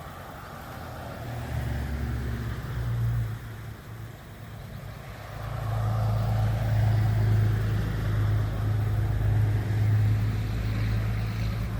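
Motor vehicle engines running with a low, steady drone, as passing road traffic. One vehicle is heard briefly a little over a second in, and a louder, longer one from about halfway on.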